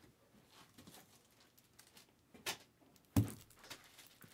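Quiet handling of wrapped trading-card packs: a short crinkle of wrapper about two and a half seconds in, then a thump on the table and a few softer knocks.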